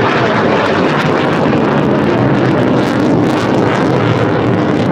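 Loud, steady jet noise from Panavia Tornado strike aircraft and their twin turbofan engines, flying over in formation.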